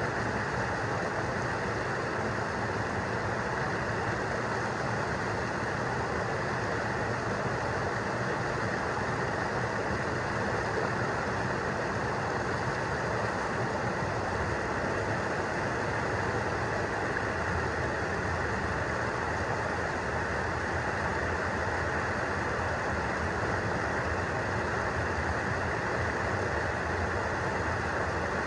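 Fast river water rushing over a rock ledge and breaking around a person standing in the current in waders: a steady, unbroken rush.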